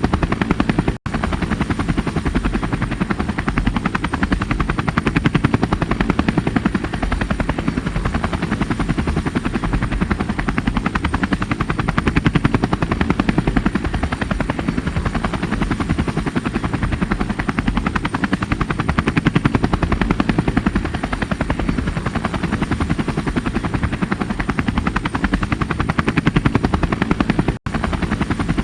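Helicopter rotor chop: a steady, fast, even beating of the blades, heaviest in the low end. It cuts out for an instant twice, about a second in and near the end.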